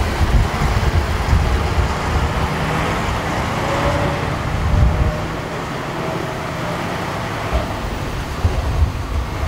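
Heavy KAMAZ diesel trucks of a convoy driving slowly past at close range, their engines running with a steady low noise.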